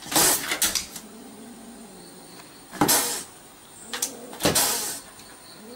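Domestic cat hissing at a dog through a car window: a cluster of sharp hisses in the first second, then single hisses about three, four and four and a half seconds in.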